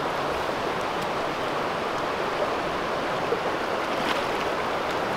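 Shallow river running steadily over its stony bed, with a couple of small splashes about three and four seconds in as a hooked fish is drawn into a landing net.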